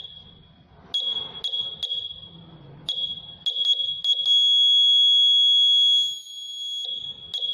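Piezo buzzer sounding a high, steady tone that switches on and off: a string of beeps of uneven length, with the longest held for about two seconds midway. It is set off when a hand comes in front of the project's proximity sensor.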